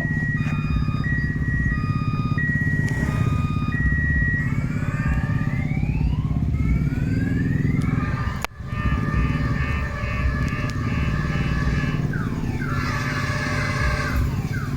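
CC201 diesel-electric locomotive with a steady low engine rumble, sounding its horn as a held multi-note chord about halfway through. For the first four seconds an electronic beep repeats evenly about every second and a half, and gliding tones rise after it and fall near the end.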